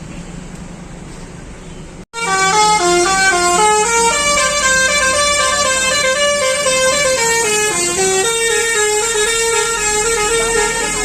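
Bus engine running steadily, then, after a sudden cut about two seconds in, a bus's Basuri telolet horn plays a loud tune of stepped, held notes, several horn tones sounding together as chords.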